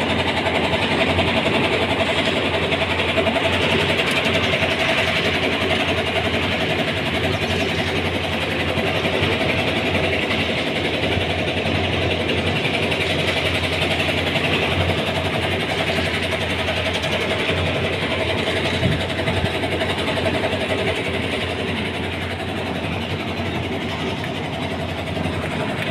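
Engine of a concrete mixer and bucket hoist running steadily.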